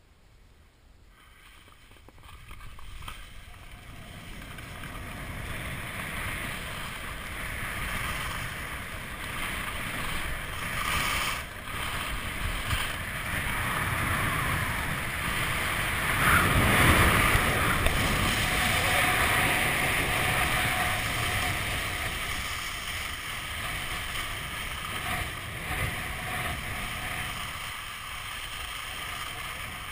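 Skis sliding and scraping over snow with wind rushing over the microphone. It builds from near quiet over the first few seconds, is loudest a little past halfway, and eases toward the end.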